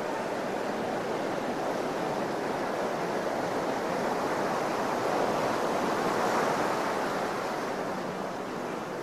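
Ocean surf washing up a sandy beach: a steady rush that swells about five seconds in and eases near the end.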